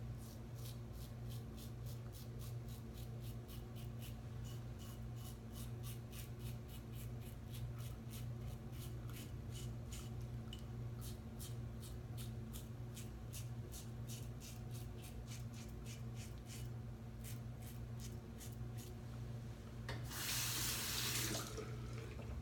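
Double-edge safety razor with a RazoRock SLOC open-comb head scraping through stubble in short, quick strokes, about three a second. Near the end a tap runs for about a second and a half. A steady low hum sits underneath.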